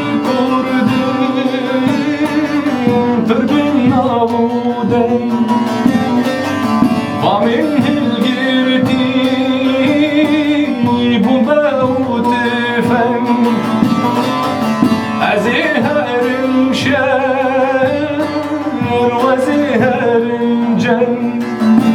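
Music: the instrumental introduction of a Kurdish folk song, plucked string instruments and a wavering, vibrato-laden melody line over a steady low drone.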